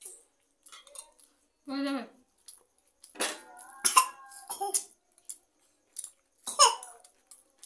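Metal spoons and forks clicking and scraping against bowls during fast eating of noodles, with a few short wordless vocal sounds, one of them falling in pitch near the end.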